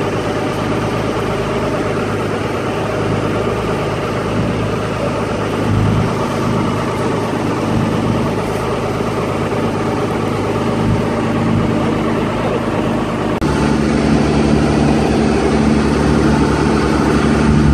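A fishing boat's engine running steadily as the boat motors along at low speed. About 13 seconds in, the engine note changes abruptly to a deeper, steadier hum.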